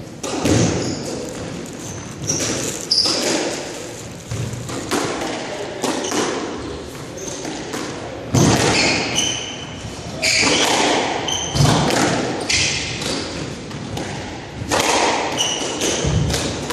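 Squash rally: the ball struck by rackets and hitting the court walls in a string of sharp knocks about a second apart, with sneakers squeaking on the hardwood floor in between.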